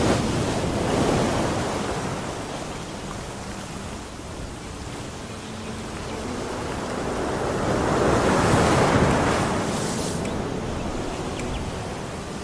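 Rushing, splashing water of a motorboat's wake along the hull, mixed with wind on the microphone, swelling loudest about eight seconds in.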